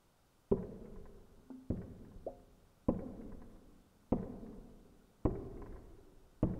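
Slow, heavy knocking: six blows at an even pace, a little over a second apart, each with a short ringing tail.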